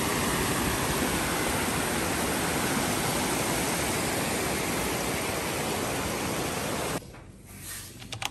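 Waterfall in full flow, swollen by heavy rains: a steady rush of falling water that cuts off abruptly about seven seconds in, leaving a much quieter background with a few sharp clicks near the end.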